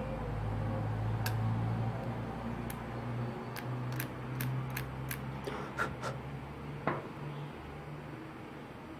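Small repair tools and phone parts clicking and tapping during a smartphone teardown: about a dozen sharp, light clicks spread over several seconds, over a steady low hum.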